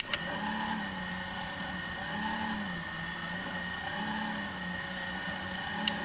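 Small battery-powered electric motor of a Casdon Hoover Electron 1100 toy washing machine turning its drum of wet washing. It gives a steady high whine over a lower hum that rises and falls about every two seconds, starting and stopping abruptly with a click. The owner thinks this motor could do with replacing.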